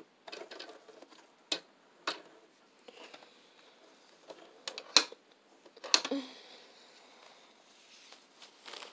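Scattered sharp clicks and knocks with faint rustling from handling the work at a sewing machine, with the machine not stitching. The two loudest knocks come about halfway through, a second apart.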